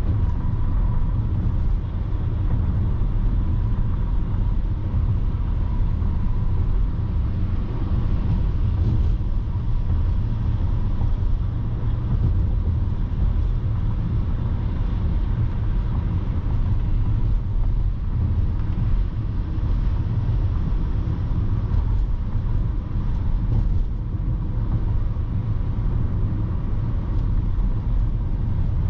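Steady low rumble of a car on the move, engine and tyre noise heard from inside the cabin through a dashcam.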